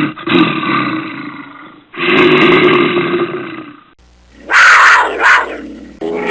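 Wild animal roars from cut-together sound-effect clips: two rough calls of about two seconds each, then two short harsh bursts near the end.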